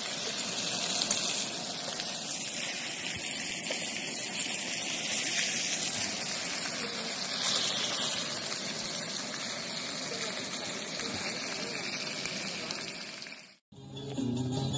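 Meat and fried rice sizzling on a camp-stove griddle and pan: a steady hiss. It cuts off suddenly near the end.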